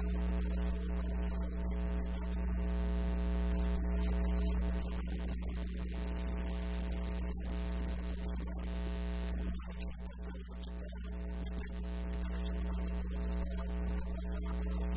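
Steady electrical mains hum with a ladder of overtones and a constant hiss underneath.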